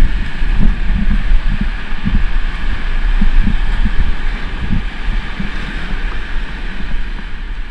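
Wind buffeting the microphone: a steady low rumble with irregular low thumps and a hiss over it.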